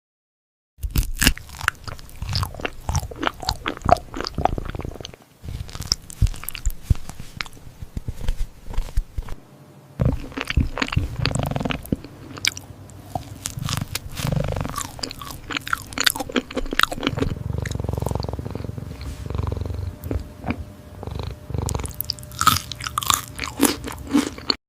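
A cat chewing and biting food up close, with fast, irregular crunching clicks that begin about a second in.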